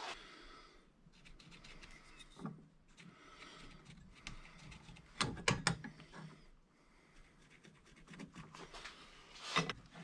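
Thin metal rod being handled and set in a bench vise: soft rubbing of leather gloves and metal, broken by light clinks and knocks about three times.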